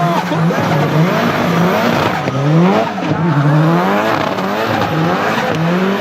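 Turbocharged Nissan 200SX engine revving up and down over and over, roughly once a second, with tyres squealing underneath.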